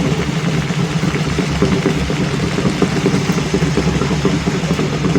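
Loud, dense stadium crowd din mixed with amplified cheering music, steady throughout with a heavy low rumble.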